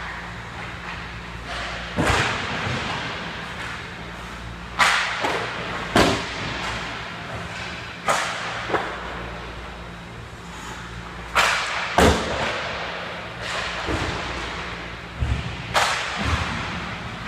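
Ice hockey pucks being shot: about ten sharp cracks of sticks striking pucks and pucks hitting the boards and goalie pads, spaced a second or more apart and echoing through the rink, over a steady low hum.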